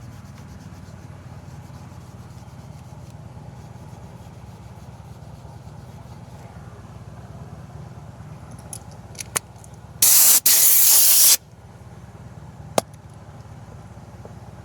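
A loud hissing spray, about a second and a half long with a brief break in it, about ten seconds in. A steady low hum runs underneath, with a few sharp clicks before and after the spray.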